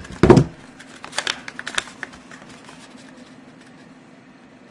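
Hands handling a tarot deck's paper and cellophane packaging on a table: a loud thump near the start, then light clicking and crinkling rustles that die away after about two seconds, over a faint steady hum.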